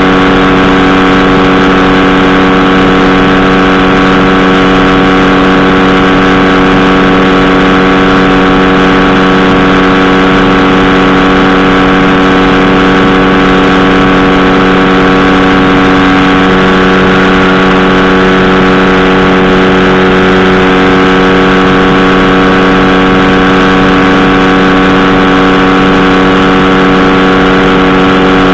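Powered parachute's engine and pusher propeller running steadily in cruise flight: a loud, even hum that holds one pitch throughout.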